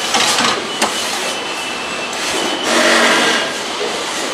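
Assembly-line machinery noise: a steady mechanical din with sharp metallic clicks near the start and just under a second in, swelling louder about three seconds in.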